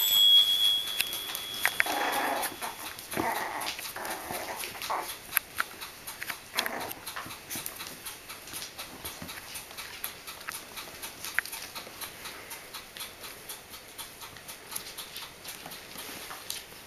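Five-week-old Bichon Frisé puppies play-fighting: short puppy growls and yips, mostly in the first seven seconds, with scattered small clicks throughout. A brief high-pitched squeak comes at the very start.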